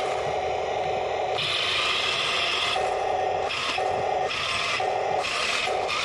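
Remote-control Tiger I model tank driving on wet grass: its electric drive motors and gearboxes run with a rubbing, ratcheting grind from the tracks. The sound switches back and forth between a lower and a higher tone several times. The owner thinks the tank needs adjusting.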